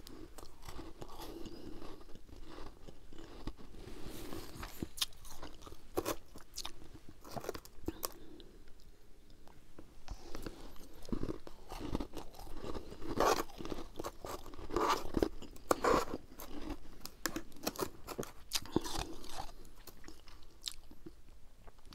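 Frost being chewed, close to the microphone: irregular crisp crunches that come thickest and loudest about halfway through.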